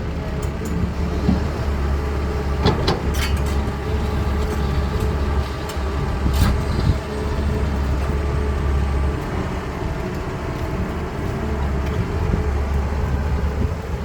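A CAT 320D excavator's C6.4 diesel engine running steadily under working load, its low drone swelling and easing as the machine works. A few sharp knocks sound around three and six seconds in.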